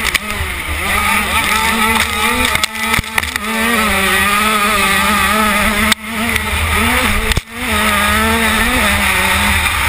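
KTM 85 two-stroke motocross bike engine, heard from on board, revving up and down as it is ridden hard, with two brief cuts in the sound about six and seven and a half seconds in. Wind rumbles on the microphone underneath.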